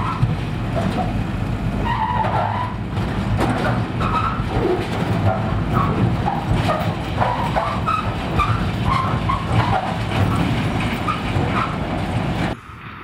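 Volvo wheel loader's diesel engine running under load as it drags a chained steel container over rocky ground, with scattered squeals and grinding of metal scraping on stone. The sound drops off sharply just before the end.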